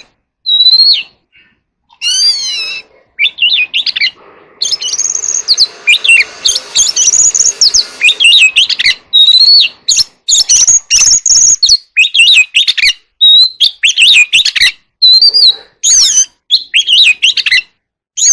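Oriental magpie-robin singing its loud challenge song: a string of sharp, varied whistled phrases with short pauses between them, and a run of rapid, scratchy chattering notes about four to eight seconds in.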